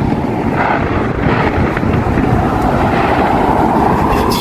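Wind rumbling steadily on the microphone, loud and dense, with a continuous din of outdoor background noise beneath it.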